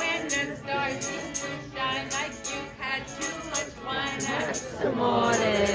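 Piano accordion music with a steady beat and a woman's voice singing. She holds a long note near the end.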